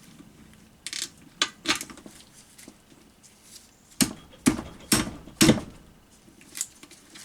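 Metal clinks and knocks of hand tools and parts being handled on a manual gearbox being taken apart: scattered light clicks, then four heavier knocks about half a second apart a little past halfway.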